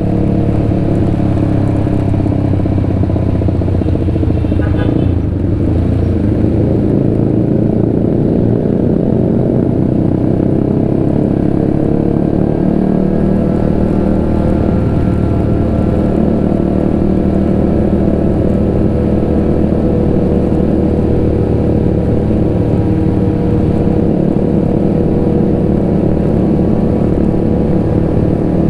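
Honda CBR150R's single-cylinder engine running while riding, its pitch shifting up and down with the throttle.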